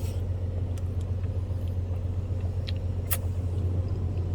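Steady low hum, with two or three faint clicks a little past the middle.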